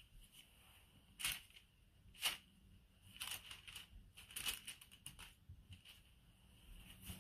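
Crinkling of disposable gloves and baking paper as hands shape cookie dough balls and set them on a paper-lined tray: two sharp crinkles in the first couple of seconds, then a run of short rustles.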